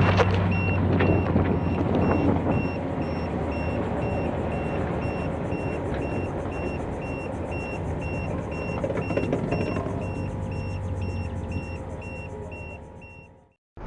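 A motor running with a steady low hum while an electronic warning beeper sounds about twice a second, then cuts off near the end.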